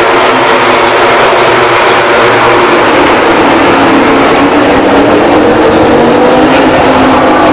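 Ducati Desmosedici GP21 MotoGP bike's V4 engine running at low pit-lane revs as the bike pulls out of the garage and rolls down pit lane. The note dips at first, holds fairly steady, then climbs slowly near the end.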